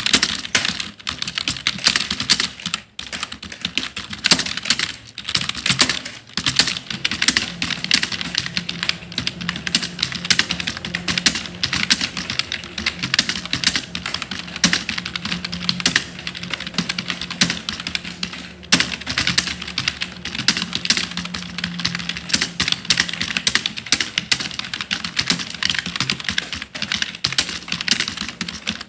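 Fast, continuous typing on a computer keyboard: a dense run of key clicks with only brief pauses.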